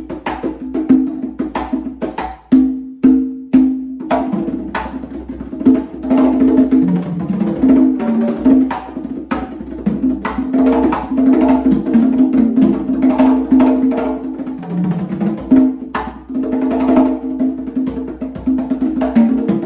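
Congas played with bare hands in a steady salsa rhythm: a dense run of sharp strikes over the drums' ringing tones.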